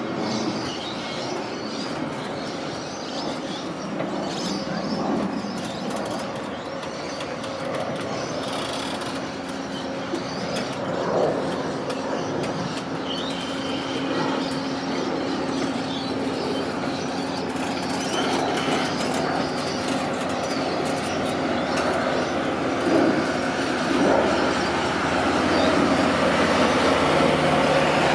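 The Overland passenger train rolling along the rails, a continuous rumble of wheels and running gear. A steady hum joins about eight seconds in, and the sound grows gradually louder toward the end.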